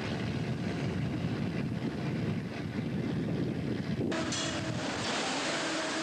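Low rumble of wind on the microphone and the sea aboard a fishing boat; about four seconds in it switches abruptly to a steady hiss with a constant machine hum.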